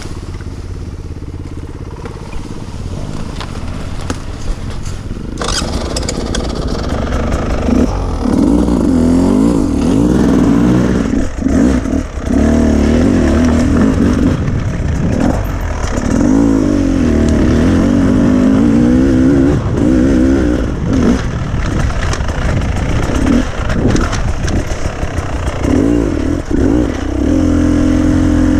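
Beta enduro motorcycle engine heard close up, running low and steady, then revving up about five seconds in as the bike rides off. Its pitch then rises and falls repeatedly as the throttle opens and closes.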